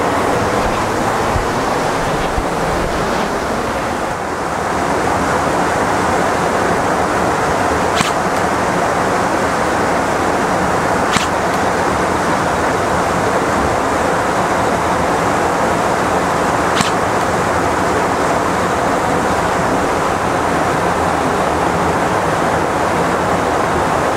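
Steady rush of wind and road noise from a motorcycle ride, with the small bike's engine humming evenly underneath. A few faint ticks are scattered through it.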